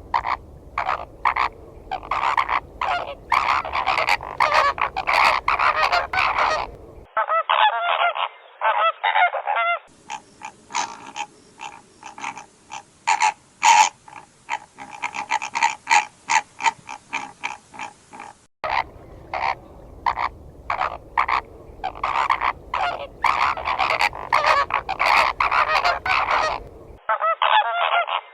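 A flock of flamingos calling, with dense, overlapping goose-like honks repeated several times a second. The track is several recordings spliced together, so the sound quality changes abruptly a few times.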